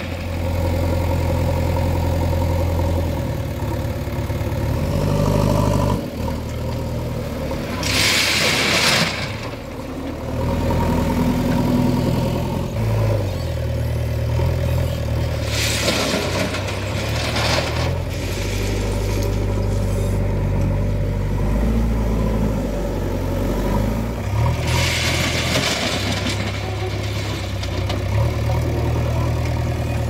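JCB 3DX backhoe loader's diesel engine running and revving as it works. Three times, about eight, sixteen and twenty-five seconds in, comes a rush of crushed stone as the front bucket tips its load into a tractor trolley.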